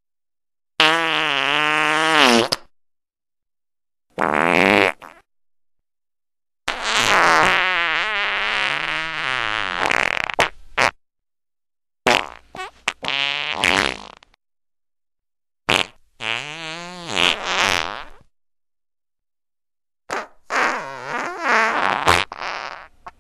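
Farts, one after another: about seven separate blasts with dead silence between them. Each has a wobbling, buzzy pitch, and the longest, near the middle, runs about four seconds.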